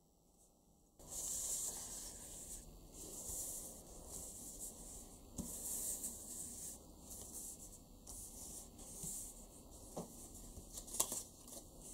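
Hands rubbing and smoothing paper cut-outs flat against a sheet of paper: a rustling paper hiss in repeated strokes, starting about a second in, with a few light taps near the end.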